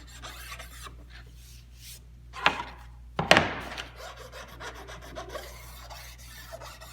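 Hand strokes rubbing along the edge of an edge-banded drawer side to ease its sharp corner. Two louder knocks, a little under a second apart, come near the middle.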